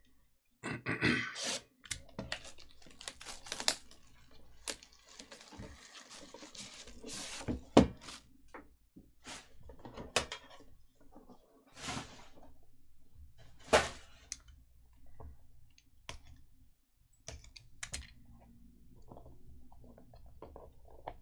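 Unboxing handling noise from a sealed trading-card box. Plastic wrap is cut and peeled off the cardboard box, and a metal tin is lifted out and handled, giving irregular rustling and clicks with a few sharp knocks.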